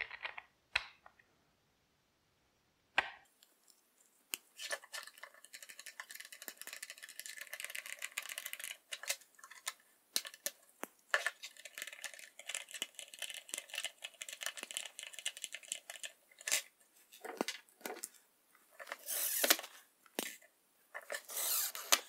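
Dense, light clicking and scraping of small bolts and screws being fitted by hand into 3D-printed plastic cable guides on a blast gate, followed by a few sharper knocks near the end as parts and tools are handled.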